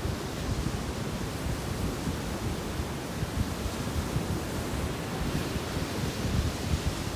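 Sea surf washing onto a beach, one wave swelling about five seconds in, with wind buffeting the microphone.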